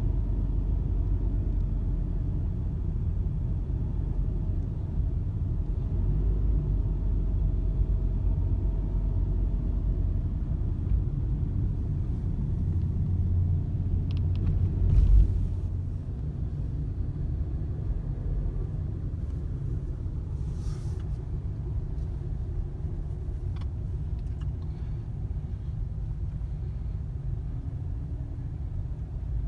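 Low rumble of road and engine noise inside a slowly driving car's cabin, with one thump about halfway through.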